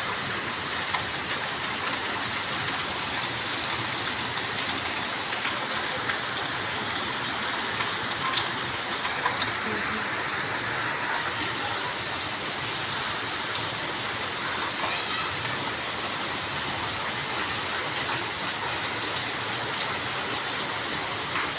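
Rain falling steadily: an even hiss with a few sharper ticks of drops striking.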